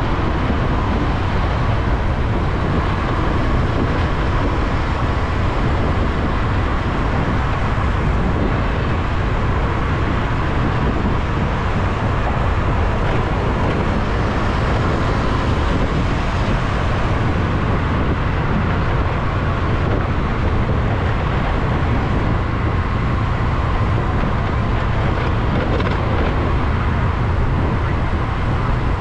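Steady street traffic noise: a continuous low rumble that stays at an even level throughout.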